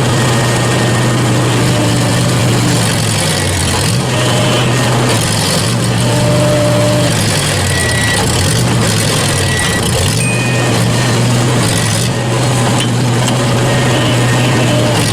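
Old Hitachi backhoe's diesel engine running steadily, its note dipping and recovering a few times.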